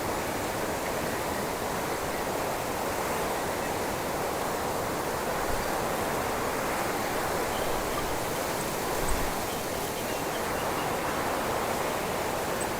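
Steady wind rushing through cypress branches, with a brief low bump of wind on the microphone about nine seconds in.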